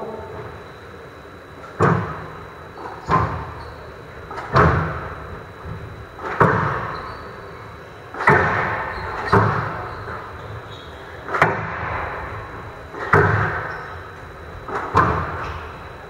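Squash rally: the ball struck by rackets and smacking off the court walls, sharp hits about one every second and a half, each ringing on in the large hall.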